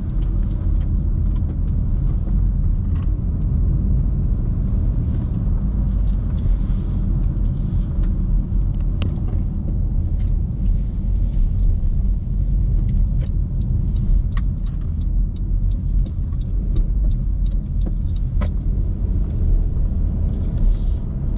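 Car interior road noise while driving: a steady low rumble of tyres and engine, with scattered light clicks over it.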